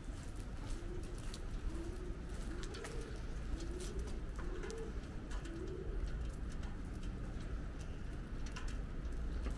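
A pigeon cooing: a run of about seven soft coos, each swelling up and falling away, stopping about six seconds in. Beneath them are a low steady rumble and a few faint taps.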